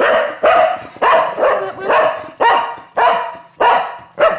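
A dog barking over and over, about two barks a second, demanding attention.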